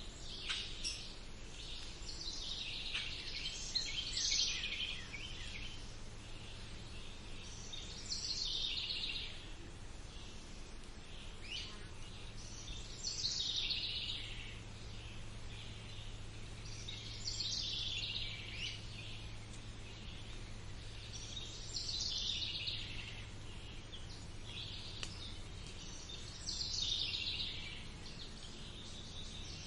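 A songbird singing the same short song over and over, about every four to five seconds, with a steady low background hum beneath it.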